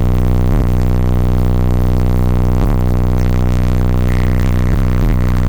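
Car audio system with nine Resilient Sounds Platinum 15-inch subwoofers playing bass-heavy music loudly: a steady, deep droning bass with a few brief dips.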